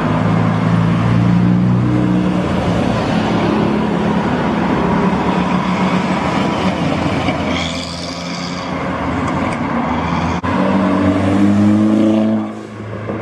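Tuned cars pulling away one after another: a Mazda RX-7, a lowered Mk2 VW Golf, then a Renault Clio RS. Their engines run and rev as they drive off, with the engine pitch rising as the last car accelerates near the end.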